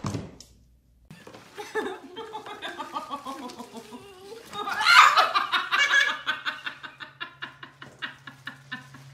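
A person laughing hard in rapid repeated bursts, loudest about five seconds in, then tapering into shorter gasping pulses. A brief thump right at the start.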